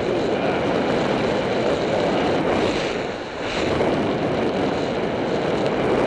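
Wind noise on a ContourHD action camera's microphone covered with plastic tape, at road-cycling speed: a steady rushing noise that dips briefly about halfway through.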